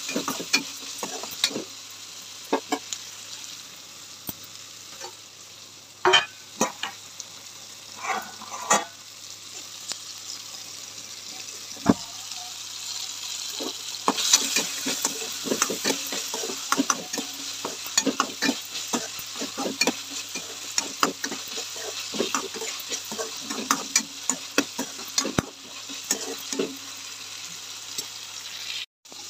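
Sliced onions, tomatoes, peanuts and curry leaves sizzling in hot oil in a kadai, a steady hiss, while a slotted metal spatula stirs and scrapes against the pan in many short clicks and scrapes.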